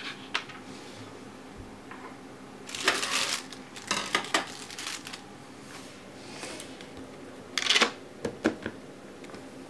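Hands handling a cardboard phone box on a desk: a few short bursts of scraping and clicking, the loudest a little before the end.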